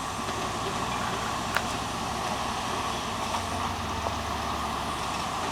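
Off-road vehicle's engine running steadily at low revs as it crawls a rocky trail, with one sharp click about a second and a half in.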